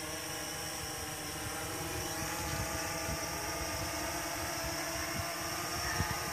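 Blade 350QX quadcopter's four brushless motors and propellers whining steadily as it hovers low, drifting while it intermittently loses GPS lock. Low gusty rumble of wind on the microphone underneath.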